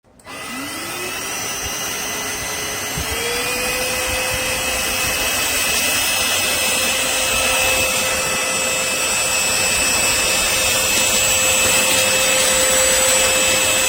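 Trucozie cordless stick vacuum switching on and spinning up with a rising whine. The whine steps up in pitch about three seconds in, then the vacuum runs steadily with a high whine over rushing air.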